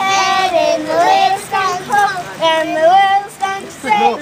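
Young girls singing an action song together in high child voices, in short phrases of held notes that slide up and down.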